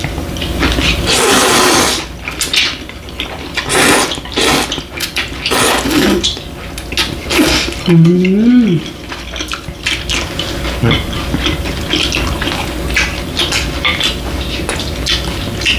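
Cold bibim noodles slurped into the mouth in several long, loud draws, with chewing and light clicks of chopsticks on plates. There is a short hummed 'mm' about eight seconds in.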